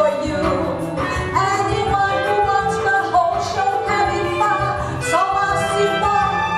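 A woman singing a melody into a microphone, accompanied by violin, cello and clarinet, in a bossa nova song.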